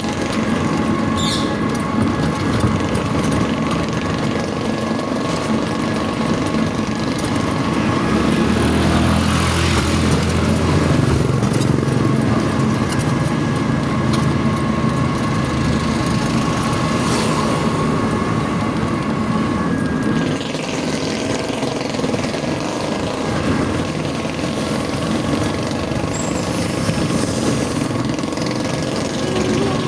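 Road traffic: vehicles running past, with a steady whine through the first two-thirds and a low rumble that swells about 8 to 13 seconds in.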